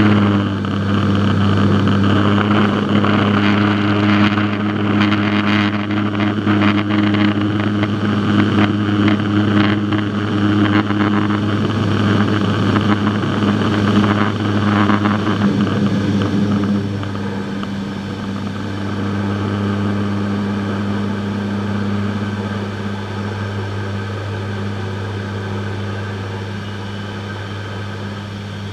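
C-130 Hercules turboprop engines and propellers running on the landing roll: a steady low propeller drone with a buzzing overtone. A loud rushing noise over the drone drops back about two-thirds of the way through.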